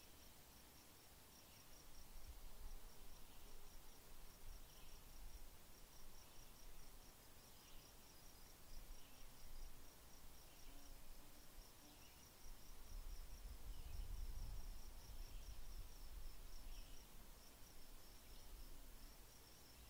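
Faint insect chirping, a steady rapid pulsing with a few short, lower calls every second or so, over a low rumble that swells about two-thirds of the way in.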